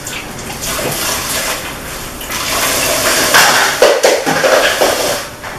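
Tap water running hard into a kitchen sink, swelling to a strong rush a little over two seconds in and easing off near the end.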